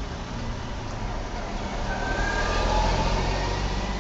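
Car engine and road noise heard from inside the cabin while creeping along in slow traffic, a steady low hum that swells a little around the middle.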